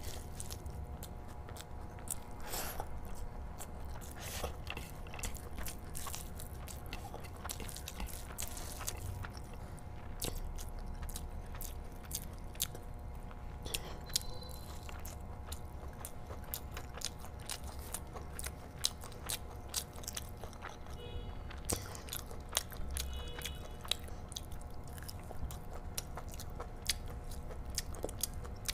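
A person chewing and eating rice mixed with curry by hand, with many small sharp wet mouth clicks.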